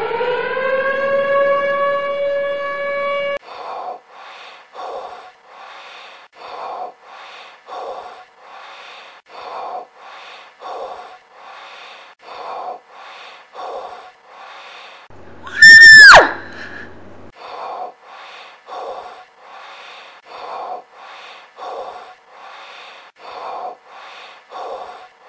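A siren-like tone winds up in pitch, holds, and cuts off suddenly about three seconds in. A steady train of short pulses follows at about two a second. Near the middle it is broken by a brief, very loud tone that swoops steeply down in pitch.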